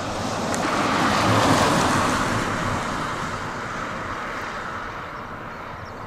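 Jet engine noise of a four-engine Boeing 747-400 climbing out after takeoff. It is a broad rushing rumble that swells to a peak about a second and a half in, then slowly fades as the aircraft moves away.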